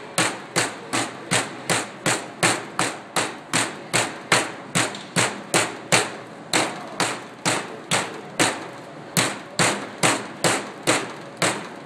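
Metal meat mallet pounding chicken breasts through plastic wrap on a stainless steel worktable, a steady run of strikes at about three a second. The breasts are being flattened to one even thickness.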